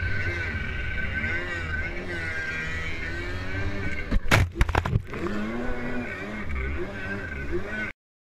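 Kawasaki 550 stand-up jet ski's two-stroke twin engine running under way, its pitch rising and falling with the throttle. A few loud thumps and splashes come about four seconds in as the hull slaps through the chop. The sound cuts off suddenly near the end.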